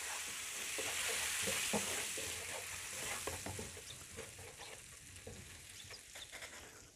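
Chili-oil sauce with soy sauce and vinegar sizzling and bubbling in a frying pan while a wooden spoon stirs it, with small scrapes and taps of the spoon against the pan. The sizzle dies down toward the end.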